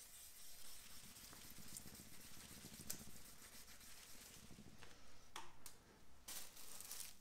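Sandpaper rubbed by hand over fresh paint on a moped panel, flatting it before polishing: a faint, steady scratchy rubbing, with a few sharper scrapes near the end.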